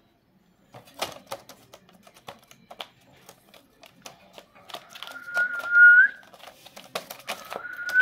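Scattered clicks and taps of a rose-ringed parakeet moving about its wire cage, with a clear rising whistle about five seconds in, the loudest sound, and a shorter rising whistle near the end.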